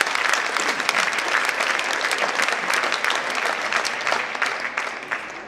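Audience applauding: a dense patter of hand clapping that fades away near the end.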